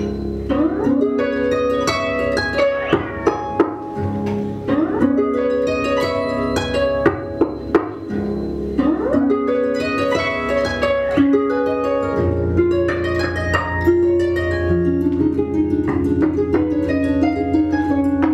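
Two concert harps played together: plucked notes that ring on and overlap, with a few notes sliding up in pitch. A low sustained bass tone comes in about twelve seconds in.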